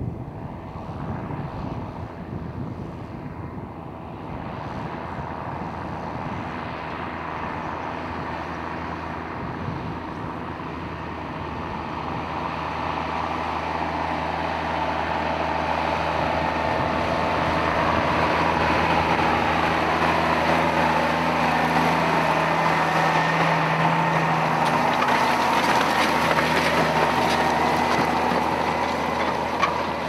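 Steyr CVT 130 tractor's diesel engine pulling hard at a steady pitch while ploughing. It grows louder as the tractor draws close and stays loudest for the last ten seconds or so.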